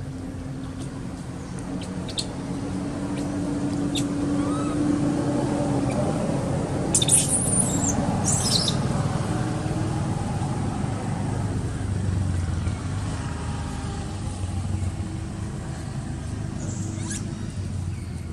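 A motor vehicle's engine running steadily, growing louder toward the middle and then easing slightly. A few short high chirps sound about seven to nine seconds in.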